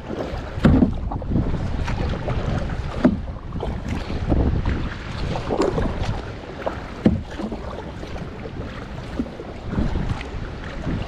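Paddle strokes splashing and dipping in the water every second or two, over steady wind buffeting the microphone.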